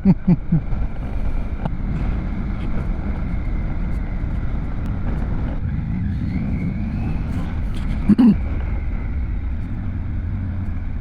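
Motorcycle on the move: a steady rumble of engine and wind noise, with a brief loud pitched sound about eight seconds in.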